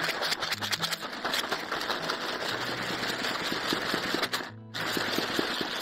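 Peanuts rattling inside a plastic tub as it is shaken hard: a dense, rapid clatter with a short break about four and a half seconds in. Background music plays underneath.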